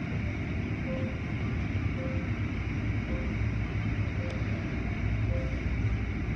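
Automatic car wash heard from inside the car: a steady low rumble with the wash of water spray and cloth curtains over the body. A short beep repeats about once a second.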